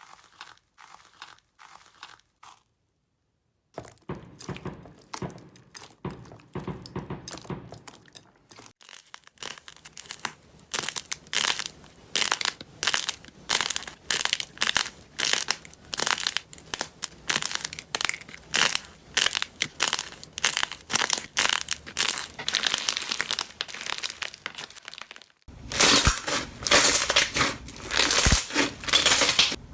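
Crunchy slime being squeezed and pressed by hand, giving a quick run of crisp crackles and crunches. It starts faint after a brief pause and gets louder, most of all near the end.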